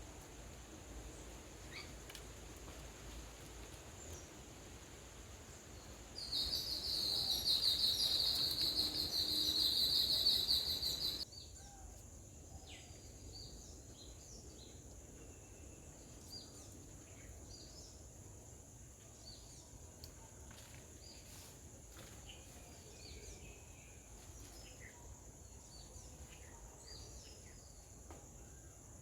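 Outdoor nature ambience with a constant high hiss. About six seconds in, a loud, high, rapidly pulsing trill runs for about five seconds and cuts off suddenly. After it, faint, brief bird chirps come here and there.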